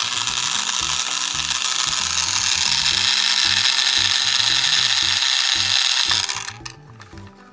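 Battery-powered Trackmaster toy train motor and gearbox running with the wheels spinning free, a loud steady grinding whir that cuts off about six seconds in. It is the noisy motor that needs repair.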